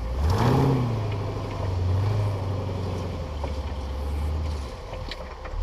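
Off-road buggy's engine blipped up briefly about half a second in, then running steadily at low revs.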